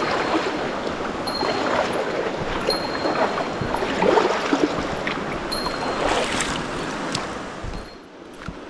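Mountain stream water rushing and splashing over rocks, with a short high note repeating about every second and a half; the water sound drops away near the end.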